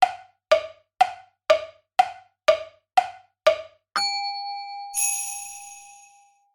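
Edited-in sound effect: eight wood-block-like ticks, two a second, then a held electronic beep about four seconds in, joined a second later by a bright shimmering chime that fades away.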